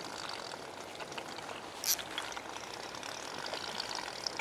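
Sea water splashing and trickling close by, an even wash of noise with small ticks, and one sharp click about two seconds in.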